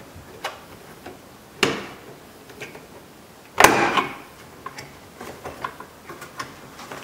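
Plastic door-trim clips popping loose as a flat-blade screwdriver pries a trim strip off a car's inside door panel. The sharp clicks are the loudest about one and a half and three and a half seconds in, the second followed by a brief plastic rattle. Lighter clicks and taps of the plastic trim being handled follow.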